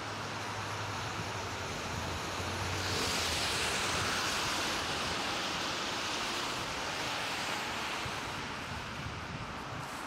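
Steady hiss of tyres on a wet, slushy road, swelling for a couple of seconds a few seconds in as a car swishes past, then fading.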